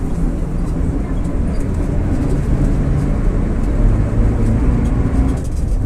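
VolksBus 17-230 OD city bus under way, its 4.6-litre MAN D08 34 diesel running with the differential growling loudly. A band of drive noise swells from about two seconds in and cuts off suddenly near the end.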